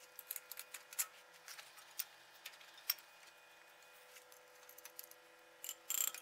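Faint scattered metallic clicks and clinks from a wood lathe's tool rest being loosened, moved closer to the workpiece and clamped back down, with a quick cluster of louder clicks near the end.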